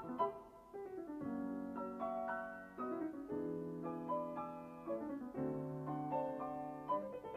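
Background piano music: a few quick notes, then held chords that change about every two seconds, and quicker notes again near the end.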